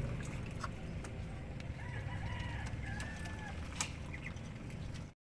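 Muscovy ducks pecking feed from a clay dish: scattered sharp taps of bills on the feed and dish over a steady low rumble. Faint bird calls come in about two to three seconds in.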